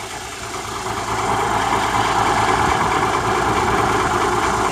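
Bus engine idling steadily at close range, growing louder about a second in and then holding.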